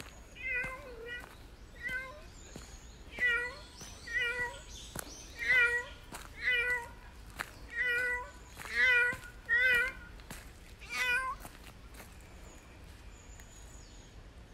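Cat meowing over and over, about eleven short meows in ten seconds, which stop about eleven seconds in.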